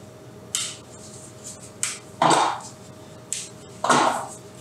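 Chocolate bar being snapped by hand into squares: a series of about five or six sharp snaps, the loudest about halfway through and again near the end.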